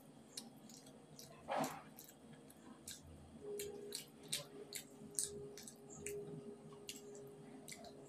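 Faint hand-eating sounds: a roti torn and scooped through vegetable curry on a steel plate, then chewed, giving scattered small wet clicks and smacks. A faint steady tone sets in about three and a half seconds in.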